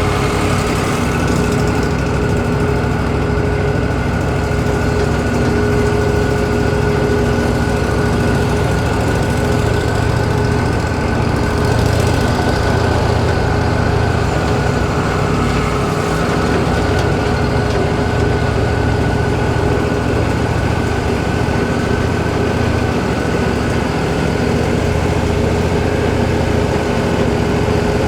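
Wood-Mizer LT40 band sawmill running steadily, its engine drone mixed with a steady high whine.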